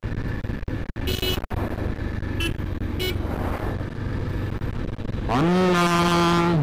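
Motorcycle riding through city traffic: steady engine and wind rumble, with short horn beeps about one, two and a half and three seconds in. Near the end a loud, steady held tone with a clear pitch takes over.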